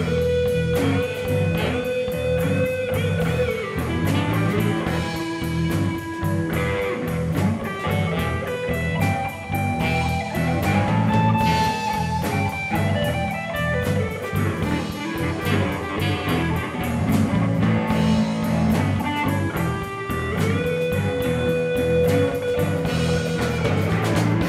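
Blues band playing an instrumental break: a guitar lead with long held and bending notes over a steady drum and bass groove.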